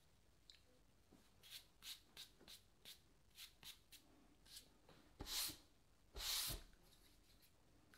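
A stack of old cardboard trading cards being handled and slid against each other: a run of short, soft rubbing sounds, then two louder brushing sounds about five and six seconds in.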